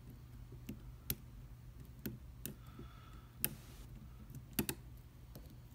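Lock pick and tension wrench working the pin stack of a Commando padlock with serrated key pins: about six separate sharp clicks spread over a few seconds, with faint scraping between them.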